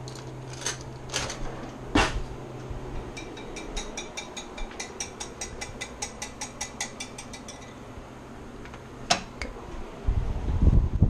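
A fork clinking against the side of a bowl. A few separate knocks come first, then a quick even run of about five taps a second, with the bowl ringing between them. A low bump near the end is the loudest sound.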